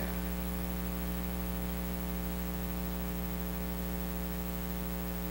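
Steady electrical mains hum with a stack of buzzing overtones over a light hiss, unchanging throughout.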